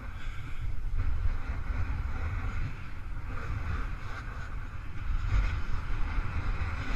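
Wind buffeting the camera microphone as a snowboard runs fast over hard-packed groomed snow, a steady low rumble with the hiss and scrape of the board's base and edges on the piste.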